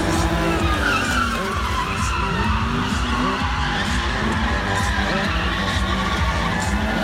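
Stunt vehicle engines revving hard, their pitch rising and falling again and again, over tyres skidding and squealing on the track.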